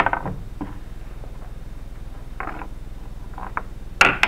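Handling noises as a block of clay is set down on a work board and the plastic clay bag is moved: a few soft knocks and a brief rustle, then a sharp knock and rustle about four seconds in, the loudest sound. A steady low hum runs underneath.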